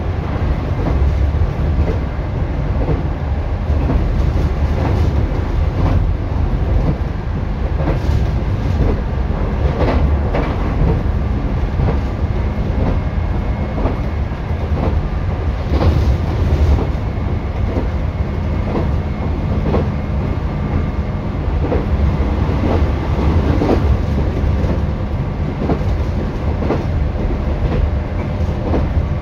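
Cabin sound of a JR 211 series electric train running along the line: a steady low rumble of wheels on rail with a faint steady hum, and repeated clicks as the wheels pass over rail joints.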